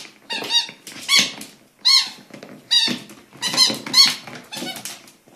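Orange rubber pig squeaky toy squeaking as a Keeshond bites and squeezes it in its mouth: about seven loud, high squeaks at uneven intervals, some sliding in pitch.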